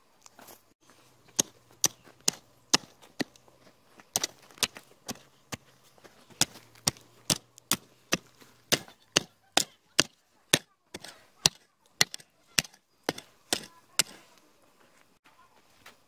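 A hand hoe chopping into dry, stony soil to dig planting holes, in a steady run of sharp strikes about two a second that stops about 14 seconds in.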